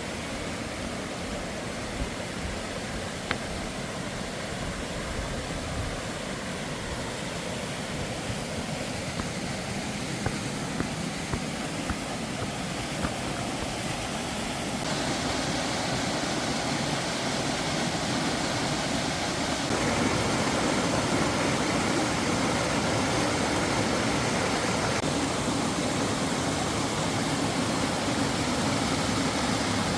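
Mountain stream rushing over rocks: a steady rush of water that grows louder in two sudden steps, about halfway through and again about two-thirds in.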